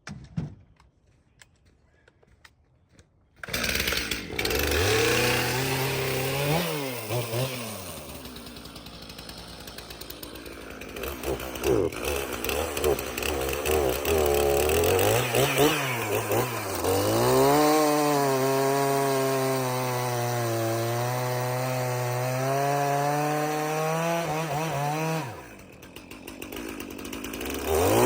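Two-stroke chainsaw starting about three seconds in, revving up and down several times, then running at a steady high speed; it drops off briefly near the end and picks up again.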